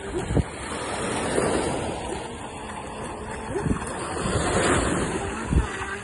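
Small waves washing onto the shore, with wind buffeting the microphone in a few low thumps, while an electric RC speedboat runs out on the water, its motor faintly buzzing.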